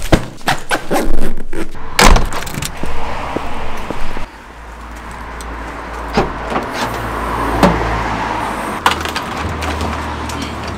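Knocks and clatter of gear and a car door being handled, then, about four seconds in, the steady low hum and hiss of a car driving.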